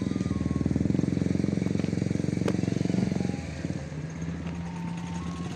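A motor vehicle's engine running close by with a fast, even pulse. It drops to a quieter steady hum a little over three seconds in.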